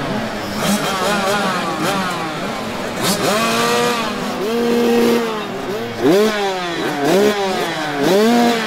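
Several motocross motorcycles racing, their engines revving up again and again in rising whines that fall back as the riders shift and ease off the throttle. The engines overlap at different pitches.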